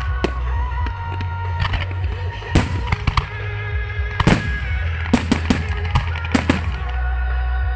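Fireworks display: aerial shells bursting in a rapid, irregular string of loud bangs and crackles, with music playing underneath.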